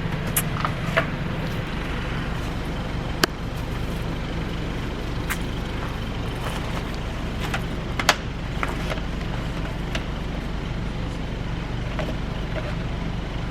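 A car engine idling steadily, with a few sharp clicks or knocks, the loudest about three seconds and eight seconds in.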